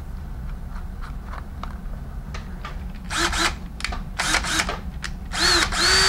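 Light clicks of a drill bit being fitted into a cordless drill's chuck, then the drill is triggered in a few short bursts, its motor whining up to speed and stopping each time, with no drilling into the wall yet.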